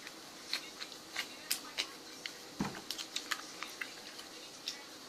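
Slime being squeezed and handled: a run of small, irregular clicks and pops, with one fuller knock about halfway through.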